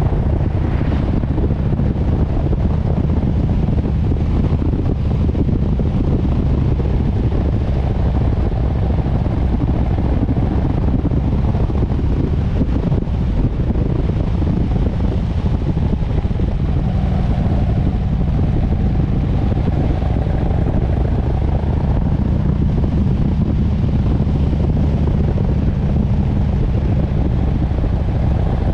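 Harley-Davidson V-twin motorcycle engine running steadily at riding speed, with wind rushing over the microphone.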